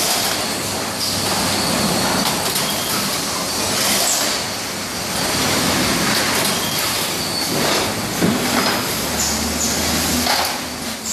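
Automatic carton tape sealer and roller conveyor running, a steady mechanical clatter of belt drives and rollers as cartons are folded and taped. A few sharper knocks stand out, and a low hum comes in near the end.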